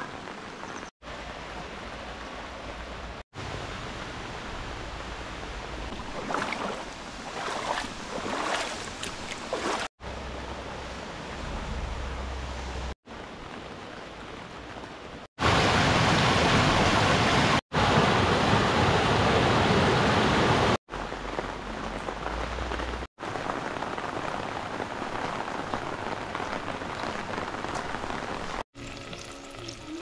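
Steady heavy rain, heard in a chain of short clips that each start and stop abruptly. About halfway through comes the loudest part, several seconds of a mountain stream rushing over rocks.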